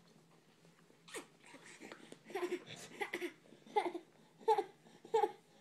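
Short breathy voiced 'hah' sounds, like panting laughs, repeated about five times a little under a second apart, starting about two seconds in, with a faint click before them.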